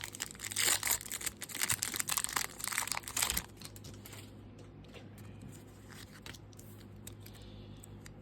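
A foil Pokémon booster pack wrapper being torn open and crinkled for about three and a half seconds, then only faint rustling as the pack is handled.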